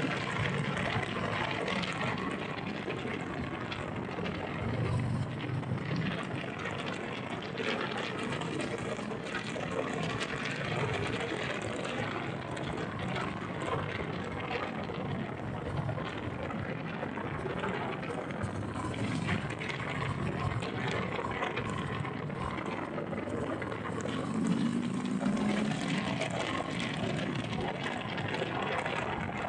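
Riding noise from a 2020 Harley-Davidson Sport Glide under way: a steady rush of wind over the microphone, with the motorcycle's engine and road noise underneath.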